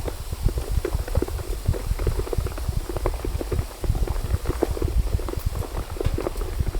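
Heavy rain drumming on tent fabric: a dense, irregular patter of drops, each landing as a dull low thud.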